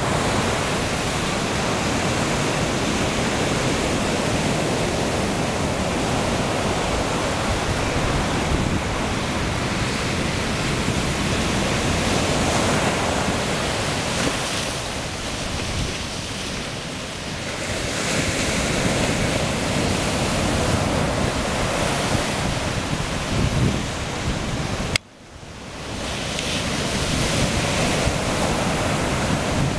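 Rough sea: waves breaking and surf washing over rocks at the shore, with wind on the microphone. The sound drops out suddenly for about a second near the end, then comes back.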